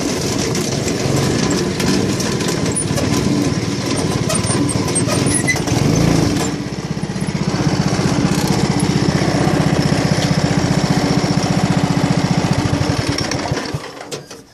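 Small go-kart engine running under way over rough dirt, with a fast even firing pulse and a low thud about six seconds in. Near the end the engine winds down and stops.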